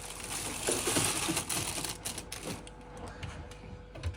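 Ice cubes clicking and clattering against each other inside a rustling plastic Ziploc bag as they are handled, a fast irregular run of small clicks.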